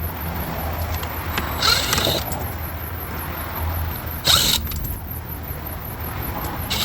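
Socket ratchet working 8 mm bolts loose, in three short bursts of clicking and turning about two seconds apart, over a steady low hum.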